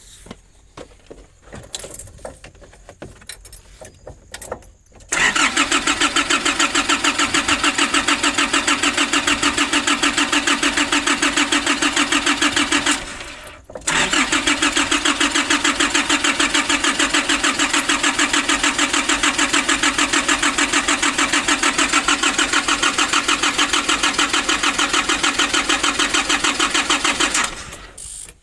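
Starter motor cranking the Nissan Urvan's diesel engine in two long bursts of about eight and thirteen seconds, with a short pause between, the turning engine pulsing evenly. The engine does not fire, its fuel system having just been bled by hand after running dry.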